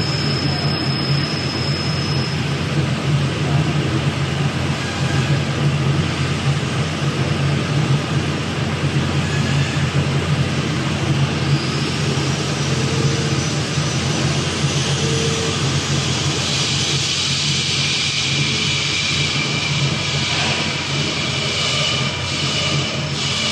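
Steady drone of running machinery: a constant low hum with a hiss above it, the hiss growing brighter about halfway through.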